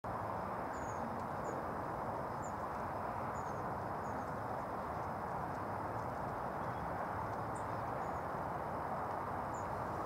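Long-tailed tits giving short, high-pitched calls, about nine scattered through, over a steady low background hiss.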